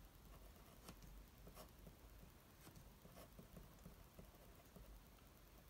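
Faint pen on paper: short scratchy strokes of handwriting.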